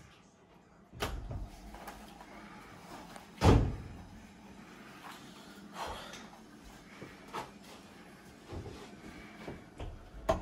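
Bathroom door being opened and handled: a series of knocks and clunks from the latch and door, with one much louder thump about three and a half seconds in.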